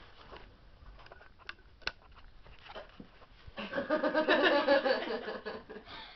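Two faint clicks, then about three and a half seconds in a group of girls bursts into loud laughter and squeals that last a couple of seconds.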